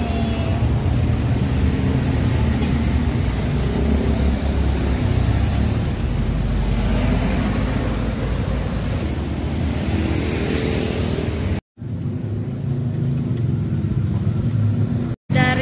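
Road traffic: cars and motorcycles passing, a steady rumble of engines and tyres. The sound drops out abruptly for a moment twice near the end.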